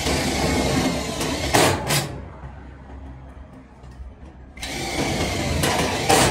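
A power tool run in two bursts of about one and a half to two seconds each, each stopping abruptly, with a low hum in between.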